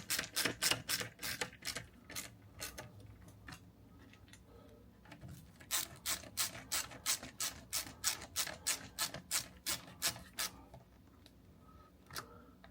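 Rapid tool clicking, about three clicks a second, as the two hex bolts holding an electric scooter's disc brake caliper are tightened. It comes in two runs with a pause of about two seconds between them.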